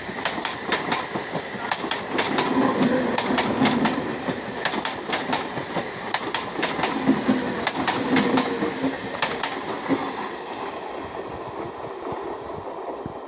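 Electric suburban local train (EMU) running past close by, its wheels clattering with rapid, irregular clicks over the rail joints. About ten seconds in the clatter thins out and the sound fades as the train moves away.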